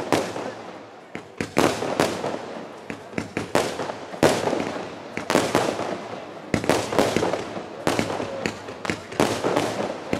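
Aerial fireworks going off in a rapid string of bangs, about one or two a second, each trailing off in a crackle.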